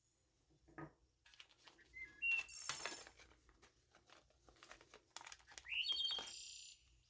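A small plastic zip bag full of jig hooks crinkling and rustling as it is picked up and handled. A bird chirps briefly about two seconds in, and again with a rising call about six seconds in.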